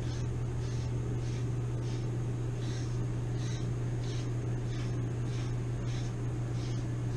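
Defurminator deshedding comb raking through a large dog's medium-length coat in short repeated strokes, about one and a half a second, over a steady low hum.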